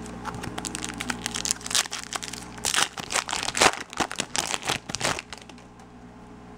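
Foil wrapper of a trading-card pack crinkling and tearing as it is opened by hand, a dense run of crackles through the middle few seconds that dies down near the end.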